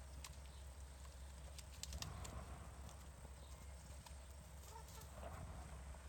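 Faint sounds of hens foraging: scattered light clicks and rustles as they peck at dandelion leaves and move about, with two soft swells of sound about two and five seconds in.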